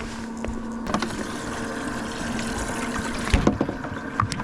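Water running steadily from about a second in, over a low steady hum, with a couple of sharp knocks near the end.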